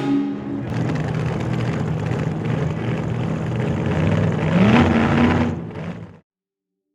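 Car engine running, with a rev that rises in pitch just before five seconds in, then cutting off suddenly about six seconds in.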